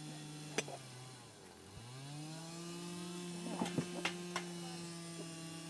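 A small engine runs steadily, its pitch sagging and recovering about two seconds in. A few light clinks of glass come near the middle as a milk glass lidded dish is handled.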